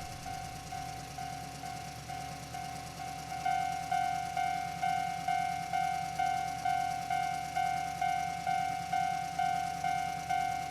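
Japanese railroad crossing warning bell ringing its repeated "kan-kan" tone, a little over two strokes a second, getting louder about three and a half seconds in. A steady low rumble runs underneath.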